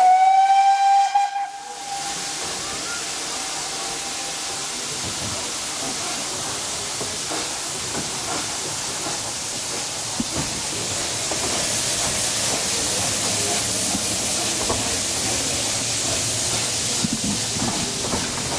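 Narrow-gauge steam locomotive's whistle sounding one short blast of about a second and a half, which then dies away. The train's steady running noise follows, heard from a carriage window, with a hiss that grows louder about halfway through.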